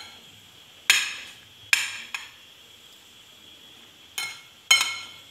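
Metal utensil clinking against a glass mixing bowl while penne and tuna are stirred together: about five sharp clinks, each with a brief ring, two close together about a second in and two more near the end.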